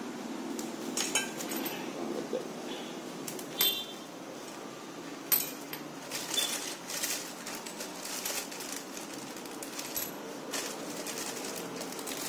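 Hands handling small pump fittings and a plastic bag of O-rings: scattered clicks and rustling, with two sharp clinks, one about three and a half seconds in and one about five seconds in, over a steady low hum.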